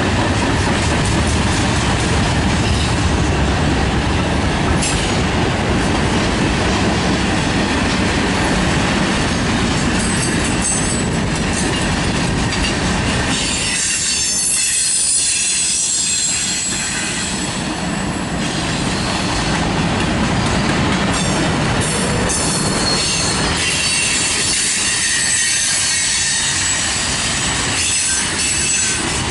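Freight cars of a mixed freight train rolling past: a steady rumble and clatter of steel wheels on rail, with high-pitched wheel squeal about halfway through and again near the end.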